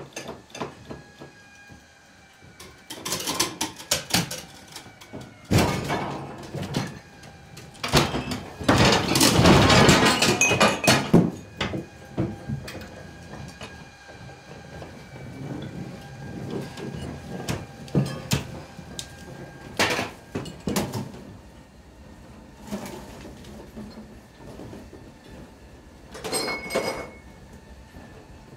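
An oak tree being dragged through a furnished living room: its dry branches scrape and crackle over furniture and floor, with irregular knocks and crashes. The loudest is a long crunching scrape about eight to eleven seconds in.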